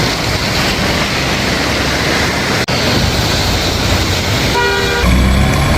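Loud, steady rush of a rain-swollen stream in spate, with a short vehicle horn toot near the end.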